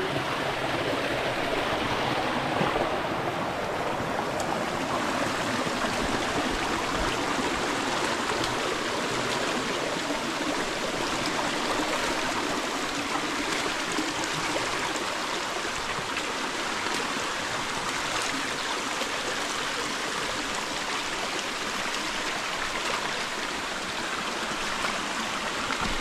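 Steady rush of water pouring and flowing at a waterfall, even and unbroken.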